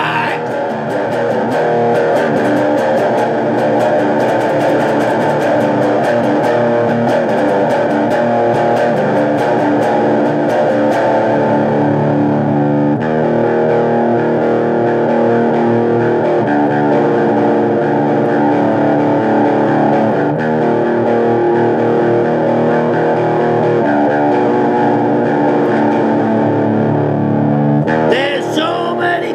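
Electric guitar played through distortion, a rock riff with fast strummed chords for about the first ten seconds, then ringing chords that change every three or four seconds.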